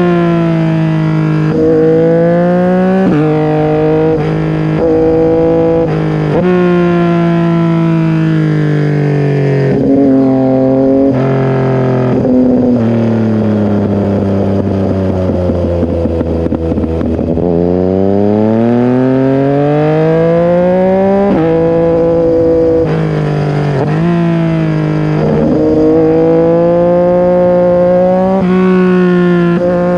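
Yamaha MT-09 SP's inline three-cylinder engine through an SC-Project full exhaust with the dB killer removed, pulling through the gears. The pitch climbs and drops at each shift, sinks to a low steady run about halfway through, then climbs again through more shifts.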